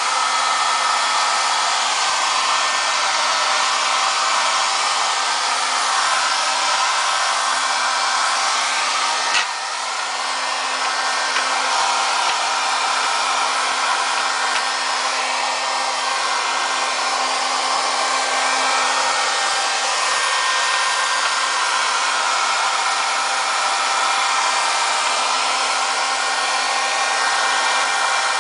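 Hand-held hair dryer running steadily, a constant rush of blown air over a steady motor hum, blowing on a vinyl laptop skin to dry out the soapy water left under it. One short click with a brief dip in level about nine seconds in.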